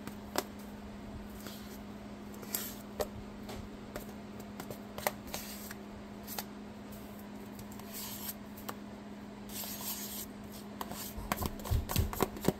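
A spoon scooping whipped topping out of a plastic tub into a bowl: soft scrapes with scattered light clicks of the spoon against the tub and bowl, a few sharper taps near the end.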